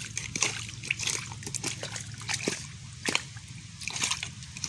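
Irregular splashes and sloshing of shallow stream water stirred by someone wading and reaching into it.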